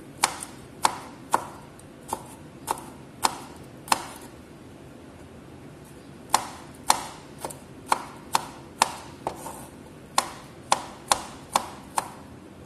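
Chef's knife chopping garlic cloves on a wooden cutting board: sharp knocks of the blade striking the board, about two a second, with a pause of a couple of seconds midway.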